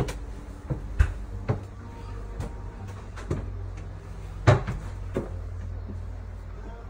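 Footsteps climbing a wooden staircase: a run of separate wooden thuds, about one every half second to a second, the loudest a little past the middle, over a steady low hum.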